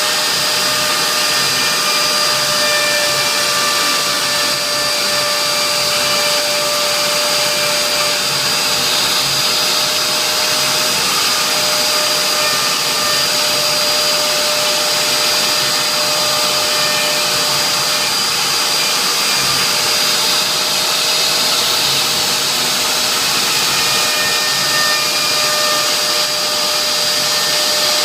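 CNC router spindle running steadily while engraving a signature board: a steady high whine over a rushing noise.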